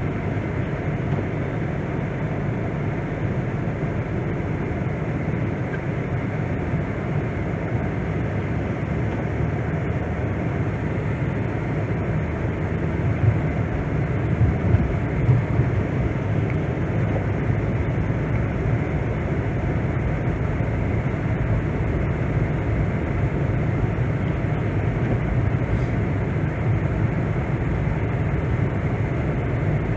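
A car driving, heard from inside: a steady rumble of engine and tyres on the road, with a few short bumps about halfway through.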